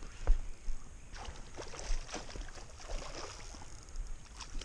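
Small waves lapping at a sandy river shore, with scattered irregular light splashes and clicks and one sharper tap about a third of a second in.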